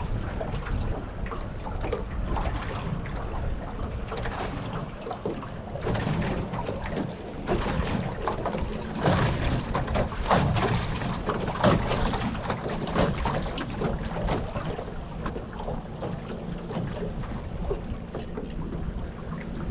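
Wind buffeting the microphone over water lapping against a small boat's hull, with a run of short knocks and splashes in the middle.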